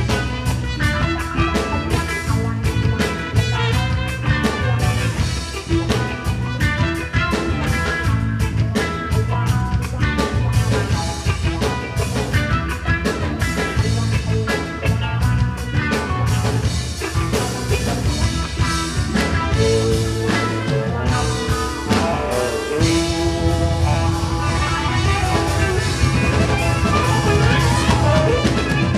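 A band playing an instrumental passage of a rock song, with electric guitar and a drum kit keeping a steady beat.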